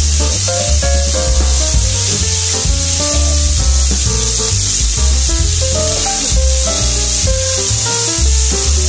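Background music with a steady bass beat, over a steady hiss of vegetables sizzling in a frying pan.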